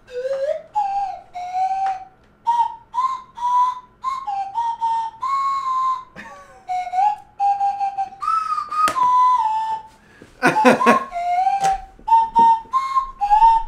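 A person whistling a tune in held notes that step up and down. There is a sharp click about nine seconds in and a short burst of another sound around ten and a half seconds.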